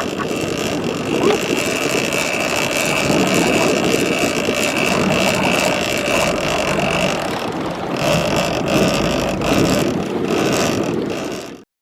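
Boat engine running, with wind buffeting the microphone and a steady high-pitched whine over the rumble that drops out briefly past the middle. All of it cuts off suddenly near the end.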